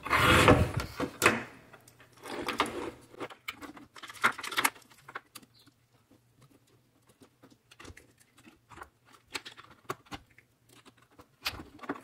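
Rustling and plastic clicks as a washing-machine electronic control board and its wiring connectors are handled. It is loudest in the first second, with a few more rustles over the next few seconds, then scattered small clicks.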